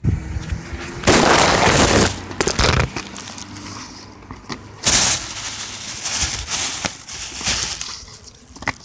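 Loud crackling rustle of something rubbing right against the microphone, in uneven bursts. The loudest stretch comes about a second in and lasts a second or two; there is another sharp burst at about five seconds and smaller scuffs after it.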